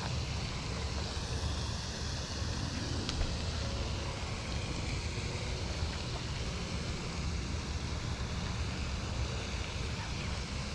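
Steady wind buffeting the microphone: a low rumble with a faint hiss over it, and one faint click about three seconds in.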